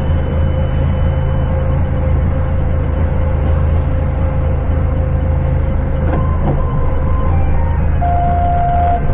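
Forklift engine running steadily while the truck manoeuvres back and forth, heard from inside the cab. A few short steady tones sound over it about six and eight seconds in.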